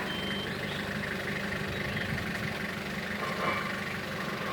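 Truck engine running steadily at idle. A reversing alarm beeps once at the very start and then stops.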